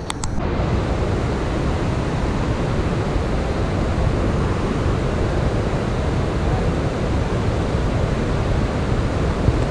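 Steady rushing of fast, churning river water below a dam spillway release, mixed with wind buffeting the microphone.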